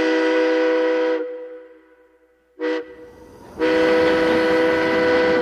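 Recorded steam-train whistle sound effect from a toy electric steam locomotive's sound feature, a steady chord of several tones. One blast ends about a second in, a short toot follows after a pause, and a long blast starts about two thirds of the way through.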